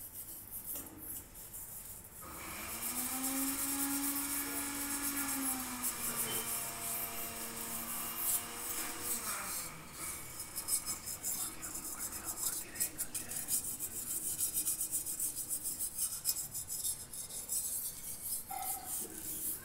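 Metal mesh scrubber rubbing hard against a copper lota, rapid scratchy back-and-forth strokes that start about two seconds in, scouring off tarnish. A held tone sounds underneath for several seconds in the first half and drops in pitch as it ends.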